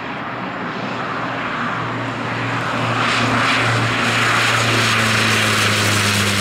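Pilatus PC-6/B2-H4 Turbo Porter's PT6A turboprop and propeller running steadily as the aircraft touches down and rolls out on the grass. It gets louder about three seconds in.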